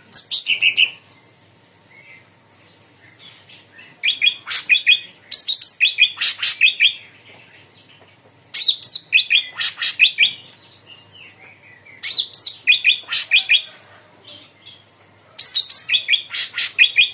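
Cucak ranting bulbul singing in full voice: a rapid chattering phrase of high, quick notes, given about five times with pauses of a few seconds between phrases.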